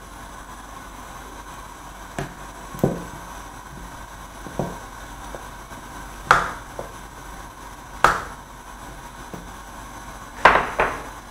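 A metal ladle knocking and clinking in a wok of boiling water and pork bones as the foam is skimmed off. There are about seven sharp, ringing knocks, the last two close together near the end, over a steady hiss.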